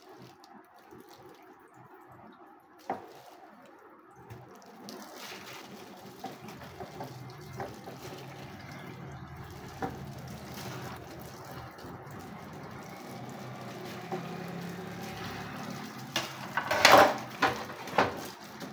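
Wet squelching of marinated chicken pieces being squeezed and turned by hand in a bowl, with scattered small clicks. A cluster of louder sharp sounds comes near the end.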